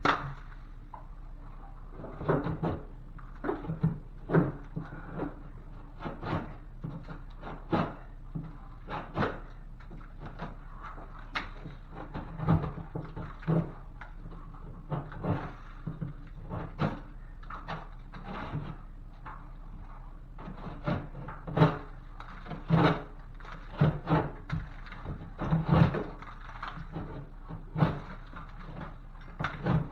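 Irregular knocks, clunks and scrapes, about one every second or so, from hand work on drywall as the damaged board is cut out and cleared.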